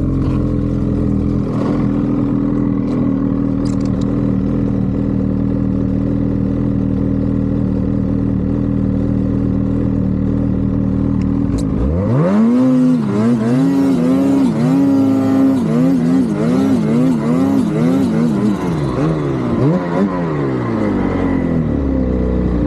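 Turbocharged vehicle engine running at a steady pitch, then from about halfway its revs rise and swing up and down repeatedly for several seconds before settling back to a steady drone. A faint high whine runs through it.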